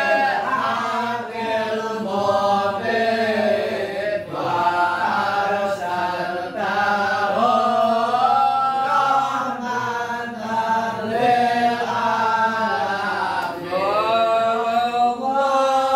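A congregation chanting sholawat, Arabic devotional verses praising the Prophet, in a continuous melodic line that glides and holds without a break.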